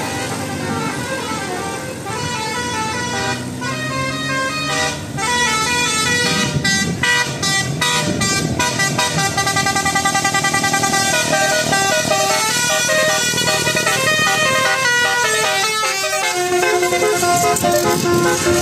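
Bus telolet horn, a multi-tone air horn, playing a melody of short stepped notes. A fast run of rapidly repeated notes comes in the middle, and one note is held near the end.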